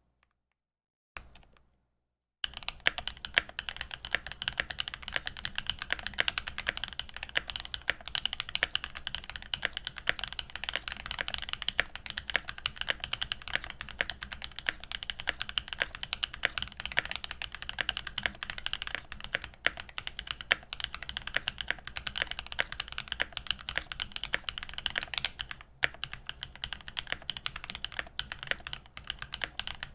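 Continuous typing on a custom Tofu65 mechanical keyboard with hand-lubed Zenclack Oooolong linear switches, a brass plate and GMK keycaps, coil-spring mounted with plate foam and Poron pads; a crisp, poppy clack. A brief keystroke burst at the very start, then steady typing from about two seconds in, with a short pause near the end.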